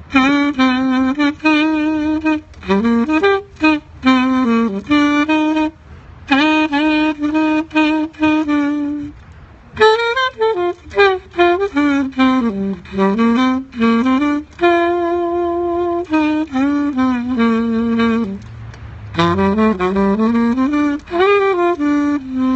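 Saxophone playing a slow hymn melody in phrases, with short pauses for breath between them.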